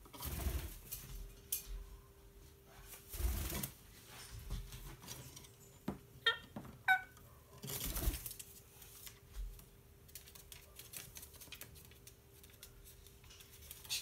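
A rose-ringed parakeet scuffles and clicks on a wooden shelf as a gloved hand prods at it, with soft rustling thumps. It gives two short high calls about six to seven seconds in, and there is a burst of wing flapping near eight seconds as it lunges off the perch.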